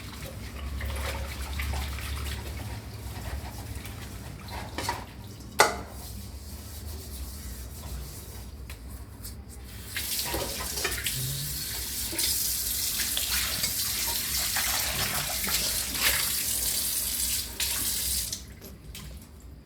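Kitchen tap water running into a sink while a pan is scrubbed with a steel scrubber, with a sharp clank about five and a half seconds in. The water runs much harder from about halfway through and is shut off just before the end.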